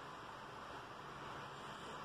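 Faint steady hiss of room tone and recording noise, with no distinct sound event.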